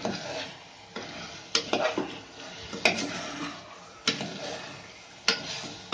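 Spoon stirring chicken and masala in a pressure cooker, knocking and scraping against the pot's side five times, about once every second and a quarter, over the sizzle of the frying masala.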